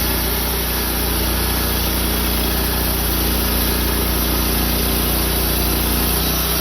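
Sawmill engine running steadily at a constant pitch while the mill saws through a cherry burl log.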